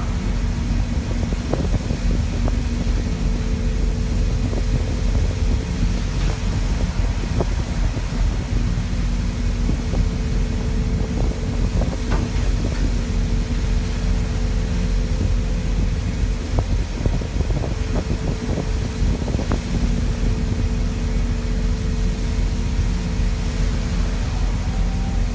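A fishing ship's engine running with a steady low drone, with wind buffeting the microphone.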